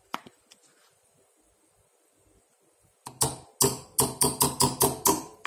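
A red measuring spoon knocked repeatedly against a wooden spoon to shake out cheonggukjang powder: about ten quick, sharp taps starting about three seconds in, after a couple of light clicks at the start.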